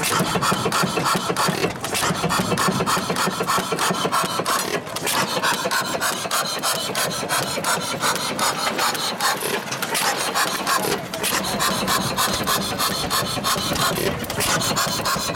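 Spence 10 hp stationary engine running, with a fast, steady mechanical clatter of many clicks a second from its moving parts.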